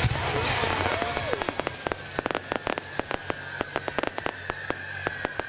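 Fireworks: a rapid, irregular run of sharp cracks and bangs from bursting shells, many each second, starting about a second in. A high whistle comes in about halfway and slides slightly down in pitch.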